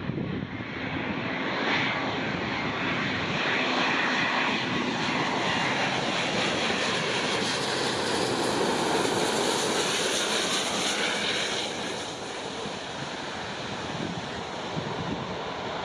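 Airbus A350 airliner's Rolls-Royce Trent XWB jet engines on landing approach: a steady jet roar that builds over the first seconds, is loudest about two-thirds of the way through, then eases as the aircraft passes.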